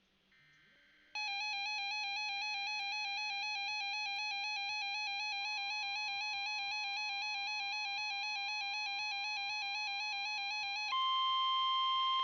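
A weather-alert radio's alarm: a loud tone warbling rapidly between two pitches. Partway through, the steady NOAA Weather Radio warning alarm tone comes in faintly underneath. About a second before the end the warble stops and the steady alarm tone carries on alone, the signal that a new warning message is about to be read.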